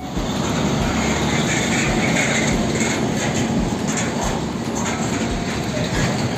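Diesel container truck pulling a loaded semi-trailer past: a steady rumble of engine and tyres, with a low thump repeating about every two-thirds of a second.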